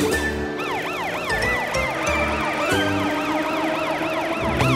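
Police car siren sound effect in a fast yelp, its pitch rising and falling about four times a second, over background music.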